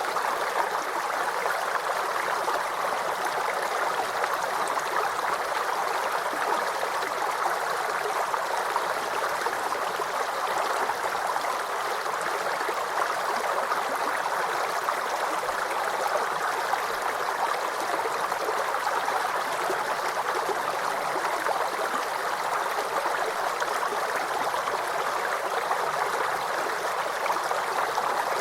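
Small stream babbling and gurgling over rocks, a steady, even rush of running water.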